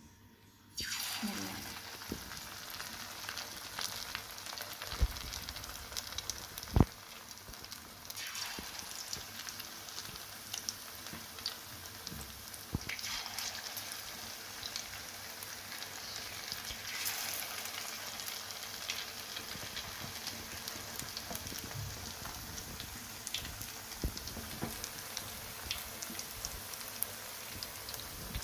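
Gram-flour batter of noodle pakoras deep-frying in hot mustard oil. A loud sizzle starts suddenly about a second in and carries on steadily, swelling again several times, with scattered sharp pops and one loud crack about seven seconds in.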